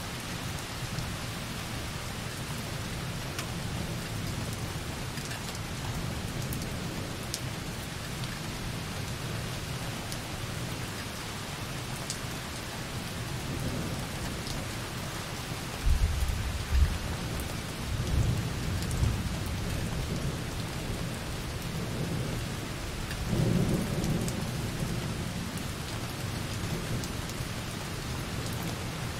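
Light rain pattering steadily on a window, with distant thunder rumbling low a few times in the second half, the first roll starting suddenly a little past halfway.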